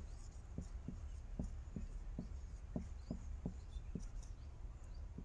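Marker pen writing on a whiteboard: about a dozen short, irregularly spaced taps and scratches of the tip against the board, faint over a steady low hum.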